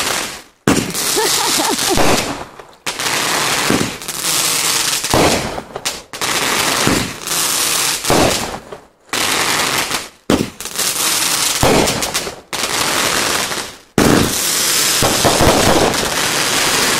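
Aerial fireworks bursting in quick succession. There are about eight loud blasts, each trailing into a second or so of dense crackle, with short lulls between them.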